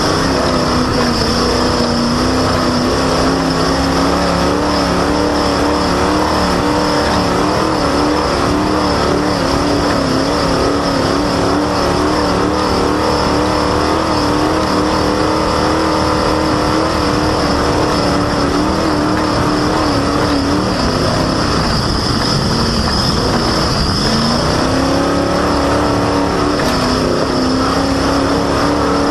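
Race vehicle's engine running hard at steady high revs, with a constant high-pitched squeal from its loud, squeaky drive belt. About three-quarters of the way through, the revs dip briefly and then climb back.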